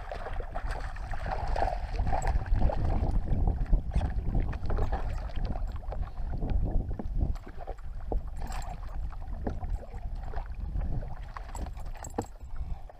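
A hooked northern pike splashing and thrashing at the surface beside a boat, with many short sharp splashes. Steady wind noise on the microphone and water slapping on the hull run under it.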